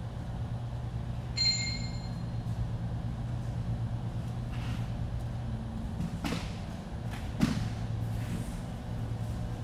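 A short metallic clink that rings briefly about a second and a half in, then two sharp knocks a little over a second apart near the end, over a steady low hum.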